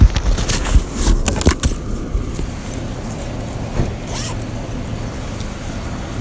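Steady low rumble of road traffic, with a few sharp knocks and clatters in the first two seconds.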